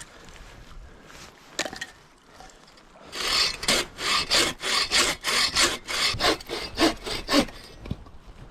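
Hand saw cutting through a log in quick back-and-forth strokes, about three a second, starting about three seconds in and stopping shortly before the end.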